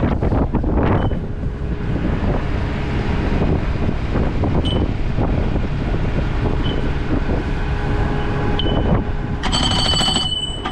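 Strong wind buffeting the microphone, with a steady low rumble beneath it. A brief high-pitched squeal comes about nine and a half seconds in.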